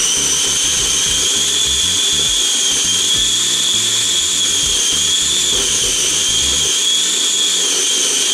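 Small electric food chopper running continuously with a steady high motor whine that wavers slightly in pitch, processing a thick peanut-ginger sauce.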